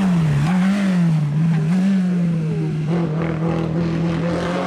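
Competition car's engine running hard at high, fairly steady revs, its pitch dipping and rising slightly and then holding.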